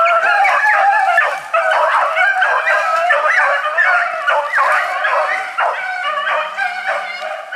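A pack of hunting beagles baying together in full cry on a hare, many high yelping and howling voices overlapping without a break.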